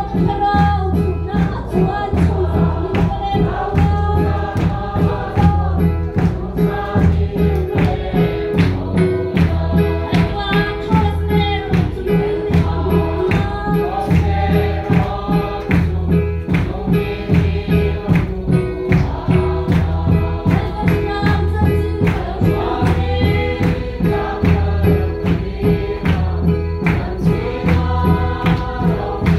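Congregation singing a gospel hymn in chorus, with hand-clapping over a steady, driving beat.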